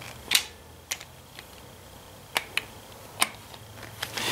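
About five small, sharp clicks and taps spread over four seconds, the first the loudest: hand work on the breaker points of a Ford 2N front-mount distributor and the small tools used on them.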